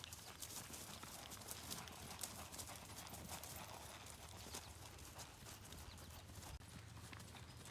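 Faint, quick hoofbeats of a ridden black-and-white horse gaiting across a grass field, over a low steady rumble.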